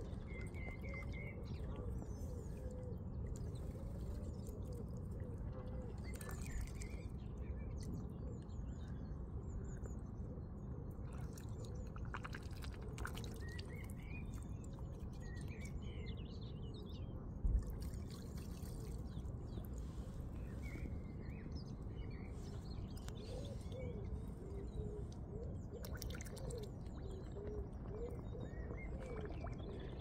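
Mute swan feeding at the water's edge, dabbling its bill in the water with small splashes and drips. Small birds chirp and geese call in the background, and there is a single thump a little past halfway.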